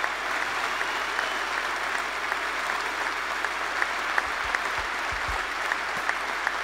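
Large arena crowd applauding steadily, with a few low thuds about four to five seconds in.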